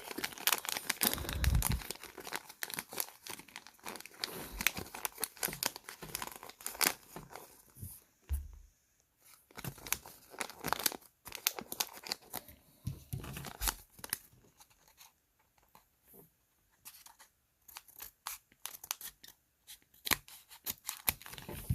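Thin plastic packaging being torn open and crinkled by hand to unwrap a miniature toy book, in irregular crackles with a few short pauses.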